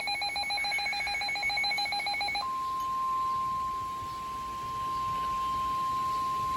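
Weather-radio alert: a rapidly pulsing alarm beep stops about two and a half seconds in, and a steady single-pitch warning alarm tone near 1 kHz takes over, the NOAA Weather Radio tone that announces a severe thunderstorm warning.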